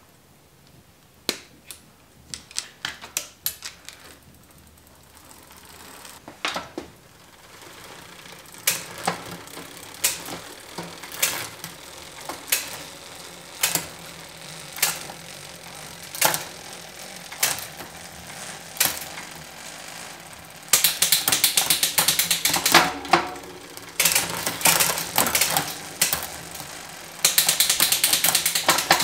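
Bicycle rear hub ratcheting as the wheel spins: fast pawl ticking in three runs of about two seconds each in the last third. Earlier come scattered small metallic clicks, then single clicks about once a second as the drivetrain turns.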